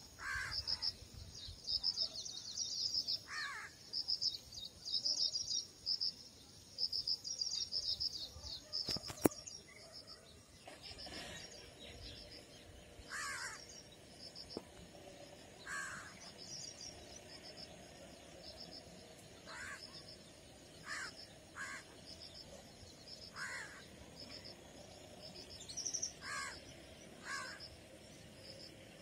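Wild birds calling in the bush: rapid high chirping, dense for the first ten seconds and sparser after, with a short, lower, caw-like call every few seconds. A single sharp click about nine seconds in.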